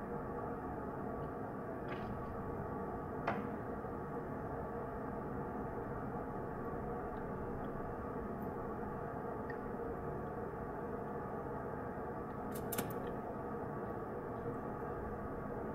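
Steady rush of water flowing into a glass tank, with a faint hum of steady tones in it. A few light clicks stand out: the sharpest about three seconds in, and a pair about thirteen seconds in.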